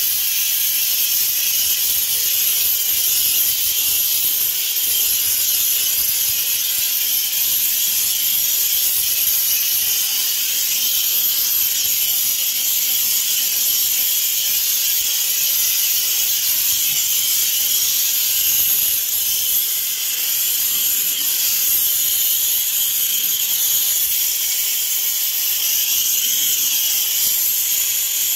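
H2O Mop X5 handheld steam cleaner jetting steam through its nozzle: a steady, high hiss that does not let up.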